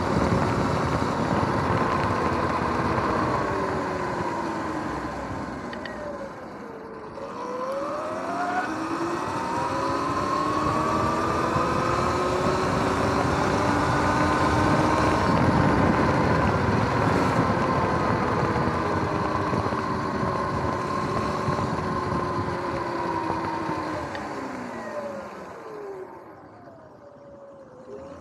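Electric dirt bike's motor whining under riding, with wind rushing over the microphone. The whine drops in pitch as the bike slows about seven seconds in, climbs again as it speeds up, and falls away near the end as it slows to a stop.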